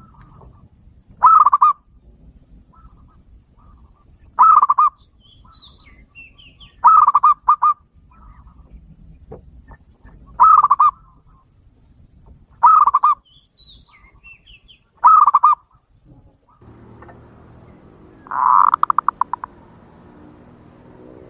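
Zebra dove (perkutut) lure calls: a short trilled coo repeated about every two to three seconds, seven times, the last a longer run of separate notes that trails off. It is the kind of call played to lure wild zebra doves.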